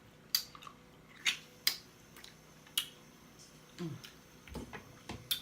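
Mouth and eating sounds at a seafood meal: about five sharp clicking smacks spread through, with a short low hum of the voice just before four seconds in.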